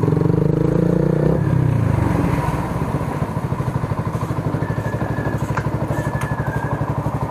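Motorcycle engine with an aftermarket exhaust fitted with a silencer insert, running at higher revs and then dropping about a second and a half in to a steady, evenly pulsing idle.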